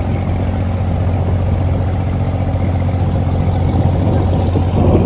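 Diesel engine of a wooden abra water taxi running steadily at a low, even pitch as the boat passes close and moves away. The low end turns rougher near the end.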